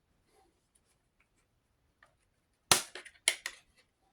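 Near silence, then sharp plastic clicks and snaps about two-thirds of the way in: Blu-ray discs being pried off the hubs inside a Steelbook case.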